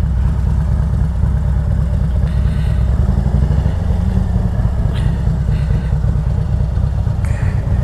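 Harley-Davidson Road Glide Special's V-twin engine running steadily at low revs as the motorcycle pulls into a parking spot.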